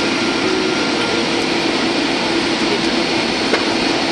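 Cabin noise of a Boeing 737-800 on final approach, heard from a seat by the wing: the steady rush of airflow and its CFM56 turbofan engines, with a low steady hum underneath.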